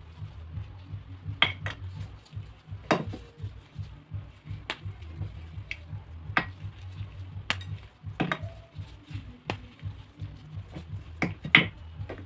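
Pieces of dry clay being broken and crumbled, giving sharp, irregular cracks and snaps, about a dozen, the loudest near the start, the middle and the end, over a low pulsing hum.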